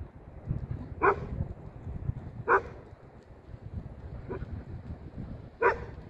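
A dog barking: four single short barks about a second and a half apart, the third fainter, over a low rumble.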